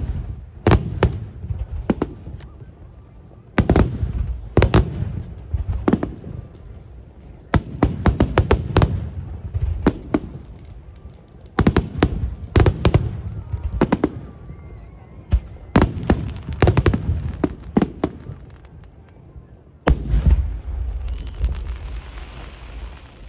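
Aerial fireworks shells bursting, sharp bangs coming in quick clusters every second or two. A heavy burst near the end is followed by a dense crackling.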